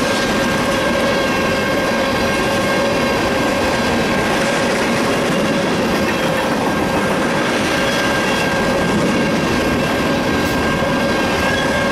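Freight train of tank cars rolling past at steady speed: continuous wheel and rail rumble with clickety-clack, and a steady high squeal held throughout.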